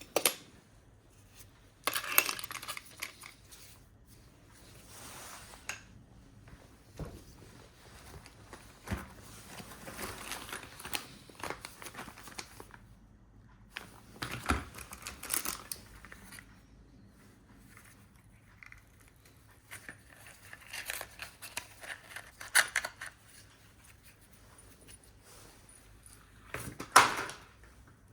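Bursts of rustling, crinkling and light metallic clinks from tools and parts being handled in spark-plug work on an engine, with a short, louder clatter near the end.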